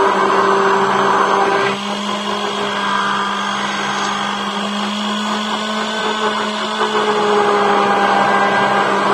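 Electric immersion blender running steadily, whipping instant coffee and water into a thick foam. It is a continuous motor whir and hum that steps up slightly in pitch a little under two seconds in.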